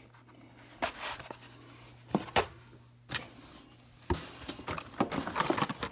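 Blister-packed Hot Wheels cards being handled: a few separate sharp plastic clicks and knocks, then a denser crackling rattle of packaging near the end, over a faint steady low hum.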